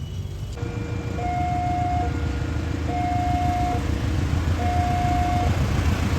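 Train horn sounding a low and a high note in turn, each held just under a second, over the steady low rumble of a running train.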